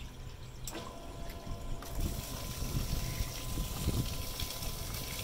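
A switch click less than a second in, then the boat's bilge pump running on its manual setting, with a faint steady hum. From about two seconds in its discharge jet splashes onto the pavement and a plastic storage box.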